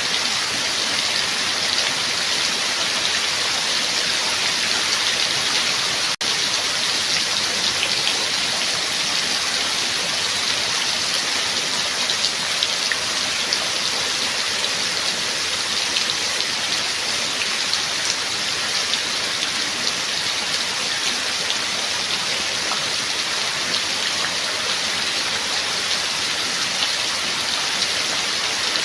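Heavy rain falling steadily, a dense hiss of drops with fine individual patter, with a momentary dropout about six seconds in.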